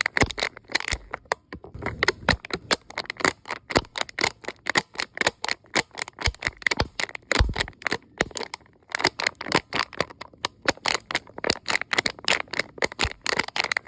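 A cup crackling and cracking as it is handled: a rapid, irregular run of sharp clicks and cracks, several a second, with a brief pause about nine seconds in.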